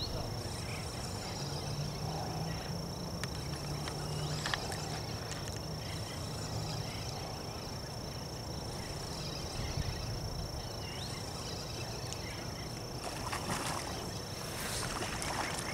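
Riverbank ambience: a steady hiss of outdoor air and water with a constant high-pitched tone, a low hum that fades out about seven seconds in, and a few faint bird chirps near the end.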